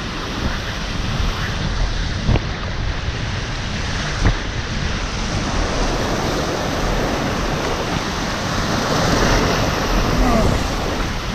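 Whitewater rapids rushing around an inflatable kayak, with wind on the microphone. Two sharp knocks stand out, about two and four seconds in.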